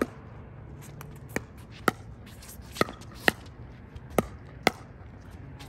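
Pickleball rally: paddles hitting the plastic ball, sharp pops that mostly come in pairs about half a second apart.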